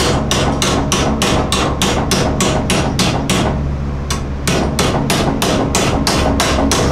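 Hand hammer striking sheet steel clamped over a 2x4 on a workbench, folding a 90-degree flange. Quick, steady blows, about three to four a second.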